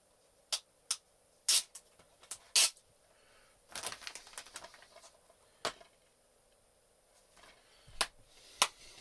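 Sharp clicks and knocks of plastic DVD cases being handled and set down, with a patch of rustling about four seconds in.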